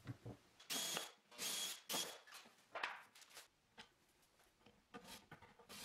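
Cordless drill running in two short bursts about a second in, driving screws for cabinet handles, with a steady high whine in each burst. Lighter knocks and clicks of cabinet doors and drawers follow.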